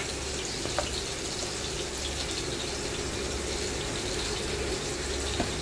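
Chopped onions frying in oil in a pan, a steady sizzling hiss.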